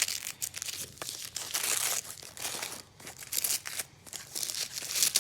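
Wrapping being unwrapped by hand: irregular crinkling and crackling, with some tearing, as a small wrapped item is opened.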